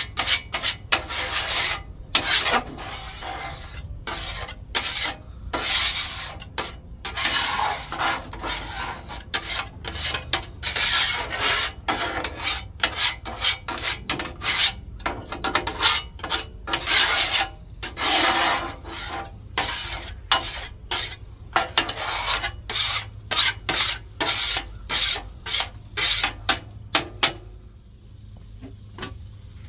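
Metal scraper scraping over the wet steel top of a 17-inch Blackstone griddle in quick repeated strokes, cleaning residue off the surface before it is re-seasoned. The scraping stops shortly before the end.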